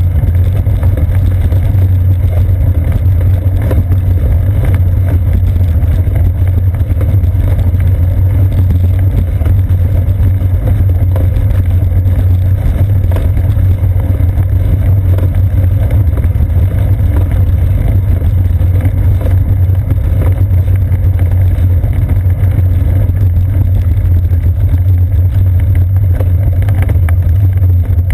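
Steady loud low rumble from a seat-post-mounted GoPro on a moving bicycle: road vibration through the frame and wind on the camera's microphone as the bike rolls over brick-paved streets.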